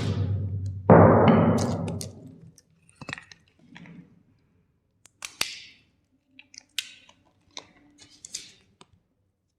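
Hard plastic cracking and crackling loudly, with a second big crunch about a second in that fades away, then scattered small clicks, taps and rattles of plastic pieces.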